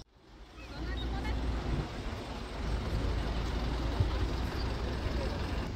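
A small city bus's engine running close by with street traffic around it: a steady low rumble that fades in over the first second, with one brief knock about four seconds in.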